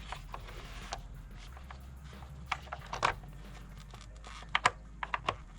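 Scattered light clicks and taps as a new oil filler cap and its seal are handled and pressed into place on the engine, with a quick run of clicks near the end.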